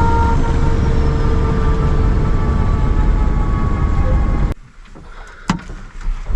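Helicopter cabin noise: a loud steady rumble from the rotor and engine with a faint steady whine. It drops suddenly to a much quieter hum about four and a half seconds in, with a single sharp click a second later.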